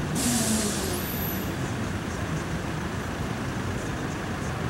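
Road traffic rumbling steadily, with a brief loud hiss in the first second and a low engine note falling in pitch at the same time.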